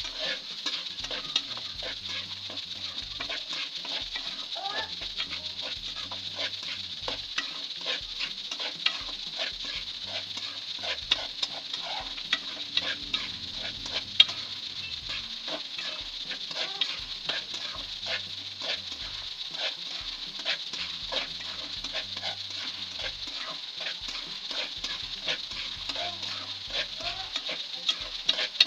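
Metal spatula scraping and clicking against a metal pan as chicken masala is stir-fried, the masala sizzling steadily in hot oil with a little water added. The clicks come several times a second, with one sharper knock about halfway through.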